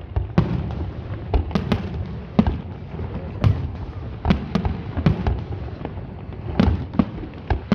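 Fireworks display: aerial shells bursting one after another at irregular intervals, about two sharp bangs a second, some coming in close pairs.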